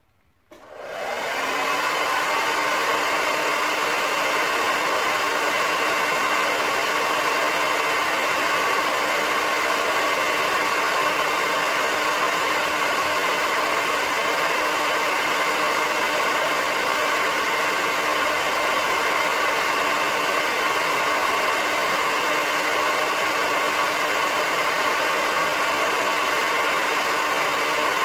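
Hair dryer switched on about half a second in, spinning up within a second to a steady blowing whir with a fan hum, running on without change.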